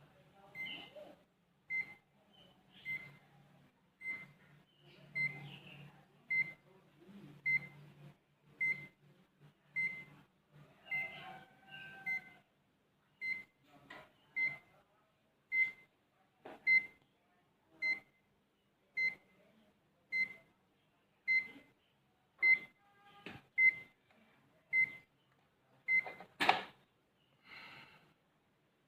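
A short, high-pitched electronic chirp with a click repeats steadily about once every 1.2 seconds, over a low hum that stops about twelve seconds in. A single sharp, loud click comes about 26 seconds in.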